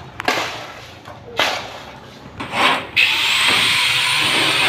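Three short crunches of footsteps on rubble. About three seconds in, a handheld electric circular saw spins up with a rising whine and then runs steadily, cutting plywood.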